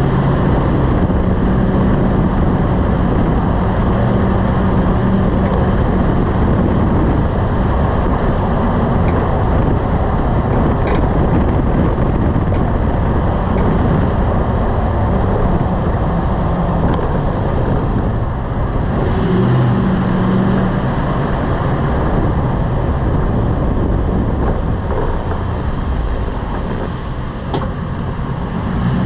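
Lifted truck driving: steady road, tyre and wind noise over a low engine drone, with a couple of faint short clicks.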